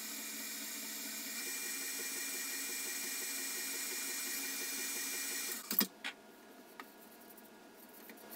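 Electric stand mixer running steadily, beating dry flour mixture into cake batter. About five and a half seconds in, it is switched off with a clunk, followed by a few faint clicks.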